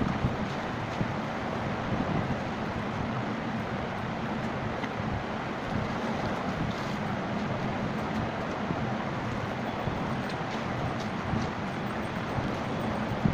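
Washing machine running: a steady noisy hum that holds even throughout.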